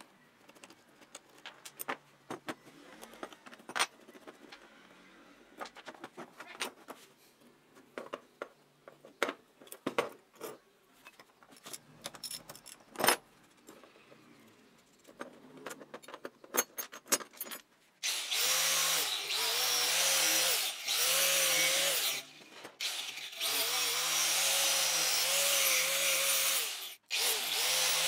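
Small metal parts of a rusty bicycle caliper brake clicking and clinking as they are handled and taken apart. About two-thirds of the way in, an angle grinder starts and runs against the steel brake arm held in a vise, its pitch dipping as it bears on the metal, and it cuts out briefly twice.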